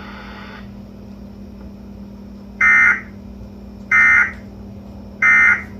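Emergency Alert System end-of-message signal: three short, shrill bursts of SAME digital data tones about a second apart, marking the end of the severe thunderstorm warning broadcast. A steady low hum runs underneath.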